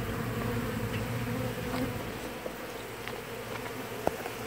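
Many honeybees buzzing in a steady drone around an exposed hive, with a small tick near the end.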